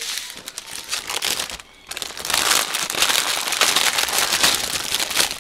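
Clear plastic cover film on a diamond painting canvas crackling and crinkling under the hands, with a short pause a little under two seconds in.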